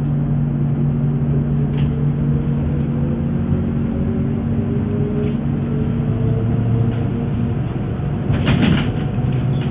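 ZiU-682G trolleybus cabin noise while under way: a steady traction-motor hum with a whine that rises slowly in pitch as the trolleybus picks up speed, over road rumble. A brief clatter near the end.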